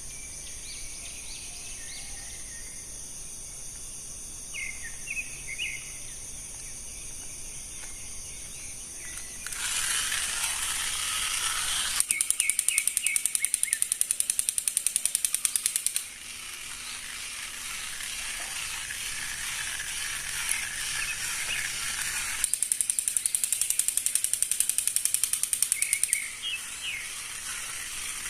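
Rapid mechanical clicking in two runs of about four seconds each, with a rushing noise between them. Short high chirps and a steady high hum sit under it at the start and near the end.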